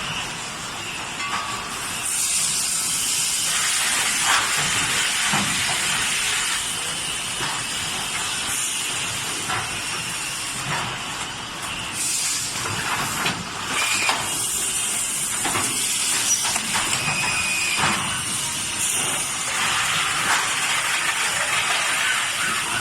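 YX-PL510B carton labeling machine running: a steady hiss, louder from about two seconds in, with scattered short clicks and knocks.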